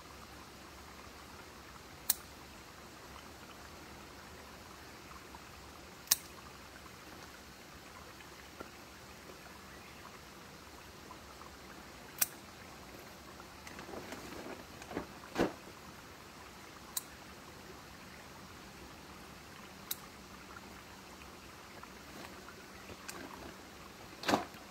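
Steady rushing of a swollen river, with a few sharp clicks and brief rustles of hydrangea foliage as spent flower heads are picked off.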